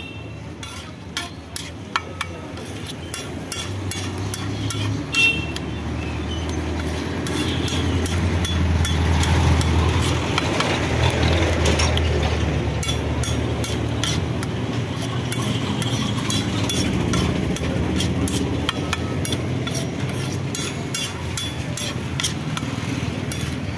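Metal spatula tapping and scraping on a flat iron tawa in quick irregular strokes, chopping and mashing aloo tikki chaat, over a steady low rumble.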